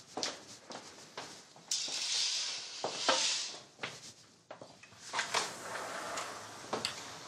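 Small knocks and clicks of people moving about a room, with a louder rustling hiss from about two seconds in that lasts a second and a half.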